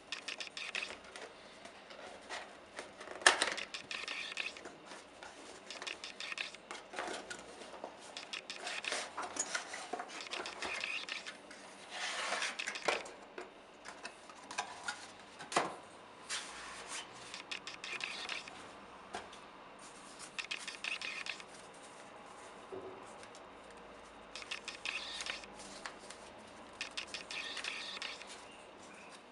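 Cardboard retail box and plastic clamshell packaging being handled and opened: irregular rustling, scraping and small clicks, with one sharp knock about three seconds in.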